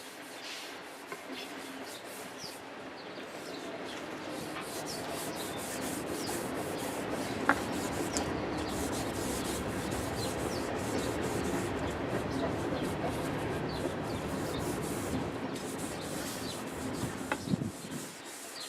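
Tung oil finish being rubbed by hand into a new wooden adze handle: a steady rubbing that grows louder after a few seconds and eases off near the end.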